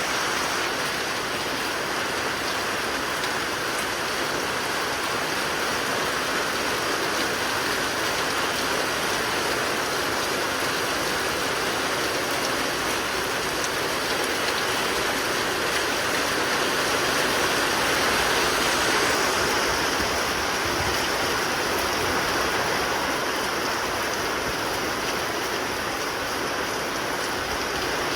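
Heavy rain pouring down in a squall line, a steady dense hiss that swells slightly about two-thirds of the way through.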